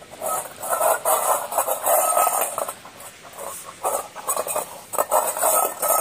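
An upturned stainless steel bowl scraping and rattling across a concrete floor as a German Shepherd puppy pushes it with its nose, in several bursts.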